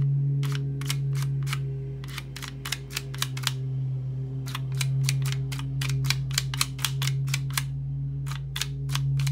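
Tiles of a 15-tile sliding puzzle clicking against each other and the frame as they are pushed around, in quick runs of clicks broken by brief pauses. A steady low hum runs underneath.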